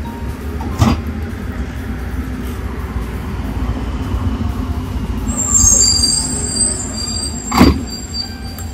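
Steady rumble of street traffic, with a high-pitched squeal of vehicle brakes for about two seconds past the middle. Two sharp knocks, one about a second in and a louder one near the end.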